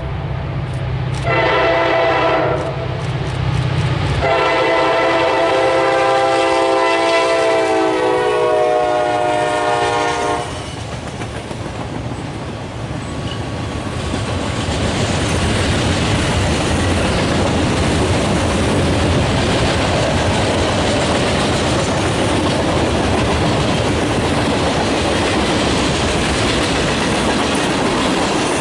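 Train horn sounding a chord of several notes: a short blast, then a long blast of about six seconds. Then the train rumbles and clatters past on the rails, a steady loud rushing to the end.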